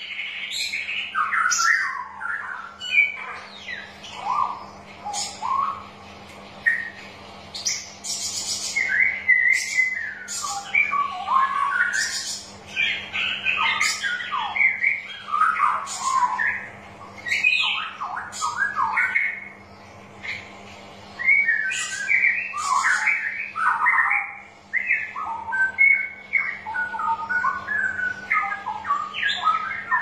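Straw-headed bulbul (cucak rowo) singing: bursts of rich, bubbling, warbled phrases with brief pauses between them. A faint steady hum runs underneath.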